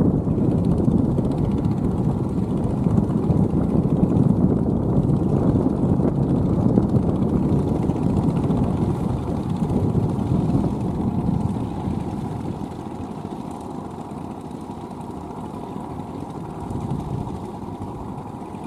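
Engine of a small ride-on paddy tiller with steel cage wheels, running steadily as it churns a wet rice field. It gets noticeably quieter about two-thirds of the way through.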